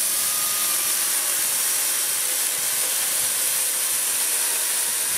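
Parkside Performance 40 V brushless cordless chainsaw cutting through a wooden beam, a steady, even hiss of chain and wood.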